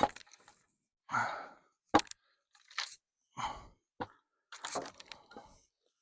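Old wooden corral boards being pried and broken apart: an irregular run of sharp cracks, splintering and knocks from splitting wood, the sharpest crack about two seconds in.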